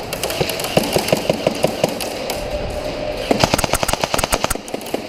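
Airsoft rifle firing two full-auto bursts of rapid, evenly spaced shots; the second burst, starting a little over three seconds in, is louder.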